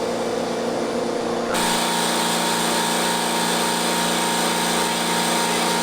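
Farm vehicle engine running steadily with a constant hum. About a second and a half in, the sound abruptly turns brighter and a little louder, then holds steady.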